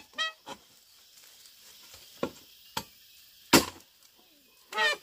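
Sharp tool blows, as in chopping wood or bamboo, struck at irregular intervals, the loudest about three and a half seconds in. Short squeaky calls, falling in pitch, come just after the start and again near the end.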